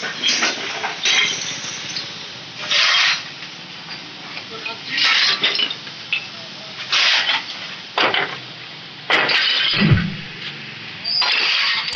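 Marble tiles clinking and scraping against one another as they are stacked on a truck bed, in repeated short clattering bursts every second or two.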